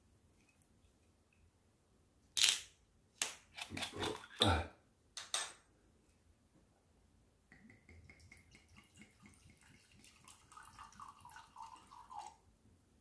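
A glass soju bottle being opened: a quick run of sharp clicks and cracks as the cap is worked loose. Then, about halfway through, soju pours steadily into a glass tumbler for several seconds.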